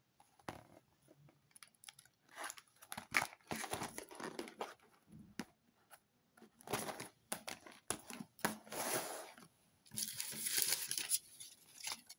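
Hands handling small cardboard snack boxes on a wooden table: irregular rustling, scraping and light knocks of cardboard and packaging, with a longer crinkling of paper near the end as a receipt is picked up.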